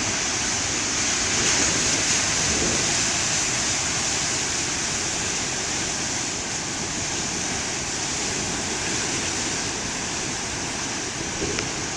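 Ocean surf and wind on the microphone: a steady rushing noise.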